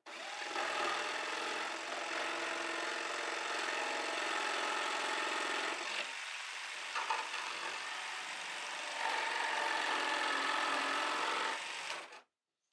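Cordless jigsaw cutting through a wooden board, the motor and reciprocating blade running steadily. The cut eases off briefly about halfway, runs louder for the last few seconds, then stops abruptly shortly before the end.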